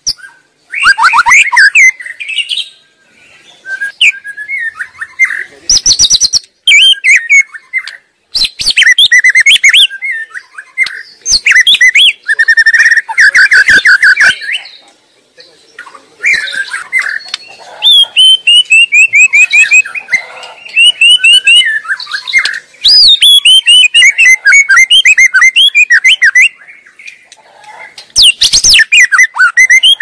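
White-rumped shama (murai batu) singing a long, varied song: loud phrases of clear whistles, fast trills and rapid runs of repeated notes, broken by short pauses.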